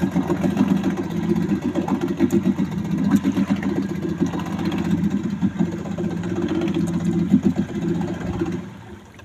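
Outboard motor running steadily with a low, even putter, stopping near the end.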